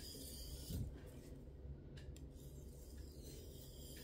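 Faint scraping of a Victorinox kitchen knife's steel edge drawn across an oil-wetted natural whetstone in light finishing strokes, over a low steady hum.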